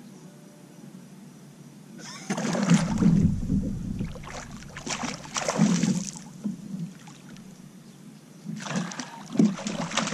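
Water splashing in noisy bouts as a hooked catfish thrashes at the surface beside a kayak: once starting about two seconds in, and again near the end.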